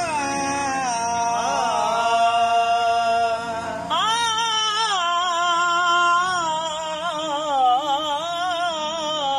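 Qawwali: men singing long, wavering held notes over a harmonium, with a louder vocal entry about four seconds in.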